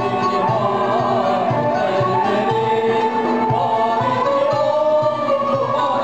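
Amplified male singer performing a Turkish Sufi ilahi, accompanied by a traditional ensemble of kanun and violin over a steady beat.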